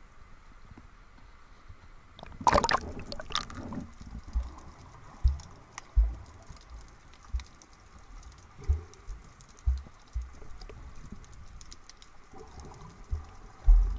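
Water splashing over an action camera as it dips under the surface about two and a half seconds in, then underwater sound through the camera housing: irregular dull thumps of water movement and handling against the housing, over a faint fine crackle.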